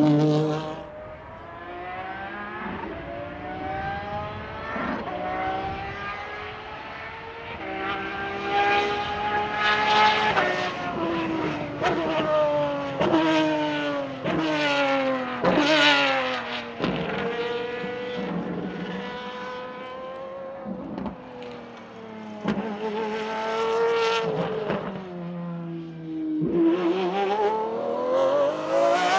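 High-revving race car engine accelerating hard through the gears: its pitch climbs and drops sharply at each shift, over and over, with some falling sweeps as it slows.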